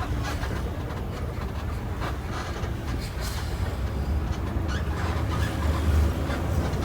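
Cabin sound of a moving intercity bus: a steady low engine and road drone, with scattered light rattling clicks.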